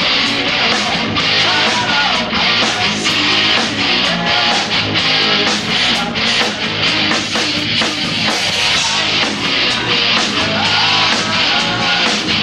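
A rock band playing live, loud and continuous: guitar over drums with a steady beat.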